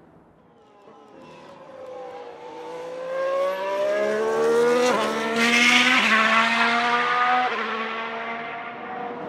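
Ferrari SF71H Formula 1 car's 1.6-litre V6 turbo hybrid engine accelerating and coming closer, rising in pitch, then upshifting three times, with a sharp drop in pitch at each gear change. It grows louder up to the second shift and eases off a little near the end.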